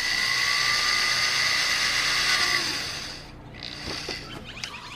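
Power drill running steadily as it bores a small pilot hole through a car bumper, then stopping about three seconds in, with a brief second burst of the drill about a second later.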